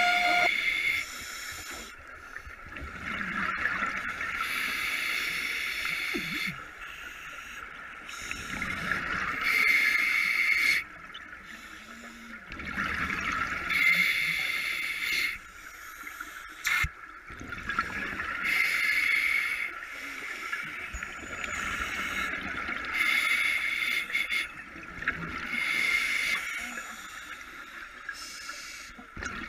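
Scuba diver breathing through a regulator, heard underwater: a hissing inhale and a gurgling rush of exhaled bubbles, repeating every few seconds.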